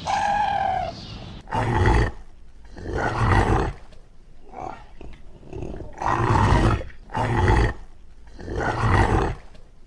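Animal calls: one short pitched call at the start, then five harsh, rough calls a second or two apart.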